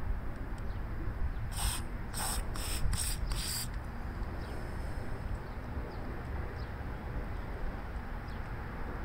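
WD-40 aerosol sprayed through its red extension straw into the ports of a lawn mower carburetor to clean them out, in about five short hissing bursts close together a second and a half in.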